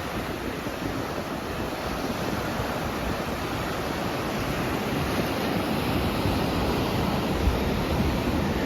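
Pacific Ocean surf breaking and washing onto a sandy beach: a steady, continuous rush of waves that slowly grows louder across the stretch.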